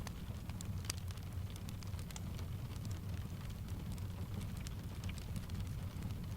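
Steady rain blended with a crackling wood fire: a low, even rumble under scattered sharp crackles, several a second.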